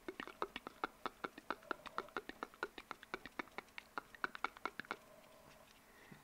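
Close-miked ASMR mouth sounds: a rapid run of wet tongue and mouth clicks, about eight a second, stopping about five seconds in.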